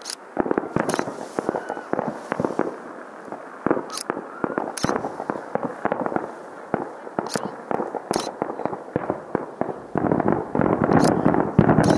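Aerial fireworks display: a steady run of shell bursts and crackling bangs, with a few sharper reports standing out. It grows denser and louder about ten seconds in.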